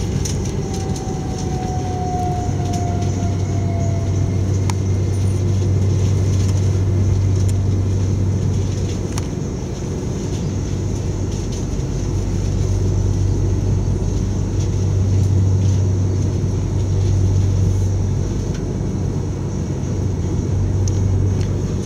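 Steady rumble and low hum inside the carriage of an Electrostar electric train running at speed. A faint tone falls slightly in pitch over the first four seconds, and a few light clicks come through now and then.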